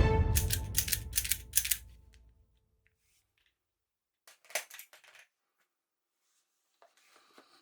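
Music dies away in the first two seconds, with sharp clicks over it. About four and a half seconds in come a short run of plastic-and-metal clicks and clacks from a toy gun's mechanism being handled, then a few faint ticks near the end.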